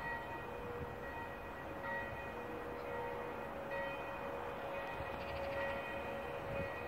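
Church bells ringing, struck again every second or two, their tones overlapping and ringing on over steady background noise.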